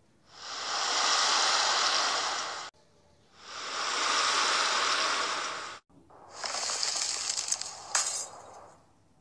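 Whirlpool sound effect: two swells of rushing, swirling water, each about two and a half seconds long. Then glass shattering, a crackle of tinkling shards with one sharp crack about eight seconds in.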